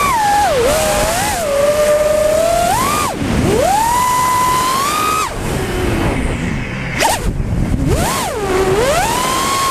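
FPV quadcopter's electric motors whining, the pitch sweeping up and down with the throttle over a rush of air. About five seconds in the whine drops away as the throttle is cut, with a few sharp crackles near the seventh second, then it climbs again.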